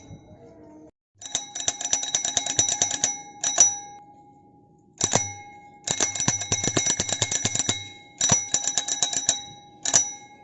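Restored bicycle bell rung in bursts of rapid strikes, with its tone ringing on through each burst. Two long trills and two shorter ones come between single rings.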